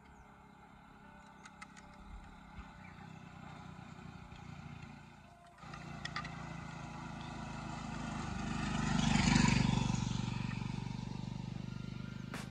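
Engine sound effect from the sound chip of a 1:24 diecast Rolls-Royce Cullinan model, played through its small built-in speaker. A steady engine hum jumps up about halfway through, swells to a rev about three quarters of the way in, then eases back. Small plastic clicks from handling the model come with it.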